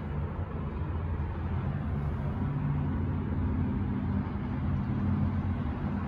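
Steady low rumble of city background noise, with a faint hum running through it.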